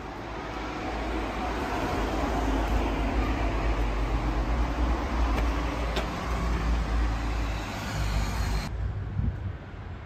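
Road traffic: a heavy vehicle passing close by with a deep rumble, swelling over the first couple of seconds, then dropping away abruptly near the end.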